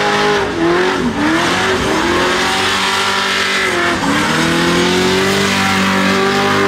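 Off-road buggy's engine revving hard and held at high revs while it spins donuts, its tyres spinning on tarmac. The engine pitch dips and climbs back up twice.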